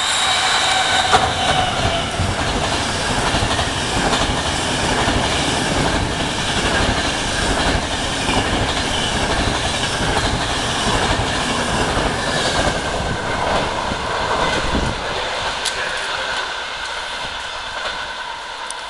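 Coaches of an express passenger train running through a station at speed, a loud steady rumble of wheels on rails with a rhythmic clatter over rail joints and a faint high whine from the wheels. The rumble falls away about fifteen seconds in as the last coaches pass.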